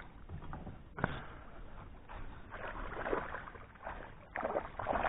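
Water splashing and sloshing in several bursts as a hooked pike thrashes at the surface while being played toward the landing net.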